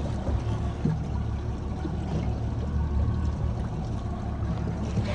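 Outboard motor running steadily at trolling speed, a low even rumble, with water washing along the hull.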